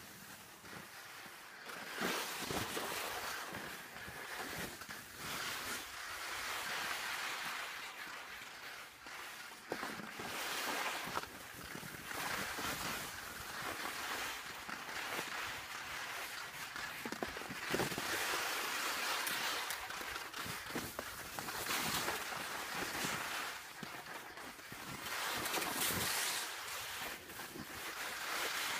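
Skis sliding and scraping over wind-crusted snow during a downhill run, a hiss that swells with each turn every two to four seconds, mixed with wind rushing over the microphone.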